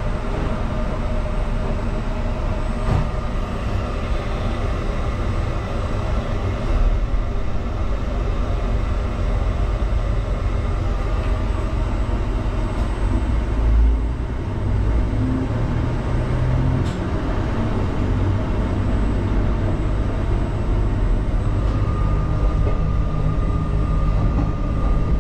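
Steady low rumble of a diesel limited-express railcar running along the line, heard from inside its toilet compartment. A faint thin whine comes in near the end.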